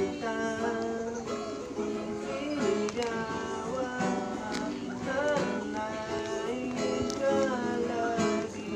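Background music with a plucked acoustic guitar.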